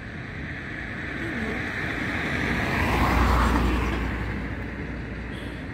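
A car driving past: a noise that builds to its loudest about three seconds in, with a low rumble underneath, then fades away.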